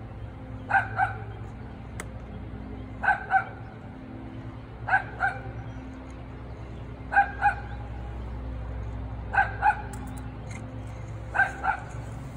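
A dog barking in pairs of quick barks, one pair about every two seconds.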